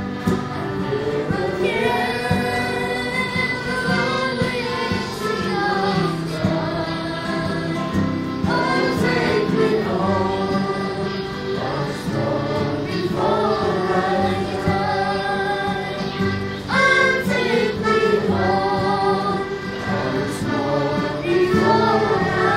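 A boy singing a folk song, with several other voices singing along.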